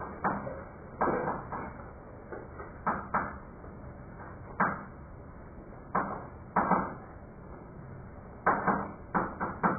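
Chalk on a blackboard: a string of short, sharp taps and strokes at irregular intervals, clustering near the end, as someone writes.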